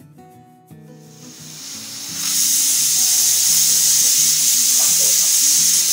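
Pressure cooker venting steam at its whistle: a loud, steady hiss that builds up over about a second and then holds, the sign that the cooker has reached pressure with the eggs boiling inside. Soft background music plays underneath.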